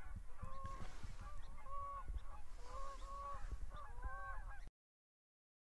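Geese honking, a steady run of short calls, over a low rumble of wind on the microphone; the sound cuts off suddenly about a second before the end.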